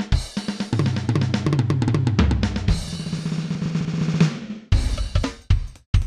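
Playback of a recorded drum track from the mixer's X-Live SD card: a continuous drum beat of rapid hits over a low sustained tone, cutting out briefly near the end.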